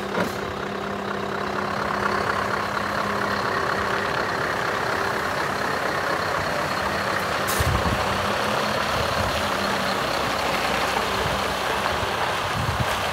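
Scania R560 hooklift truck's V8 diesel engine running steadily as the truck pulls away and drives off across gravel, with one short sharp sound about seven and a half seconds in.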